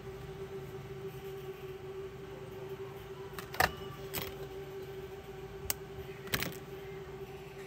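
A steady low hum with four sharp clicks, the first the loudest, spread over a few seconds, as of small parts or tools being handled on a workbench.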